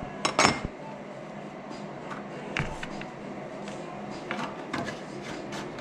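Workshop handling sounds: a sharp knock about half a second in, another about two and a half seconds in, then scattered lighter clicks and taps of parts or tools being moved.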